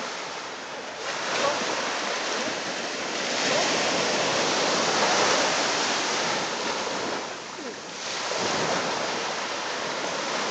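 Small waves breaking and washing up a sandy beach: a steady rush of surf that swells and eases, dipping briefly about a second in and again near the three-quarter mark.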